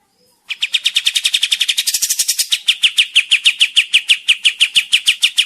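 Kapas tembak, a bulbul, singing a long rapid run of sharp, repeated down-slurred notes. It starts about half a second in at roughly eight notes a second, eases to about six a second in the second half, and stops near the end. This is a lure recording of an in-form male in full song.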